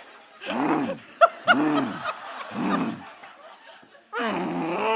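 A performer's voice imitating an animal: three short calls that rise and fall, about a second apart, then a longer call near the end.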